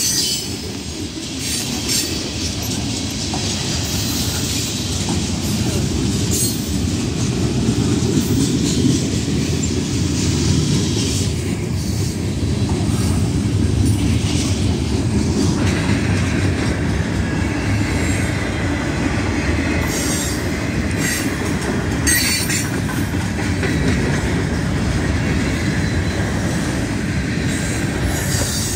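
Norfolk Southern freight cars rolling past over a grade crossing: a steady rumble of steel wheels on rail with occasional clacks, and a higher squealing hiss that comes in about halfway through.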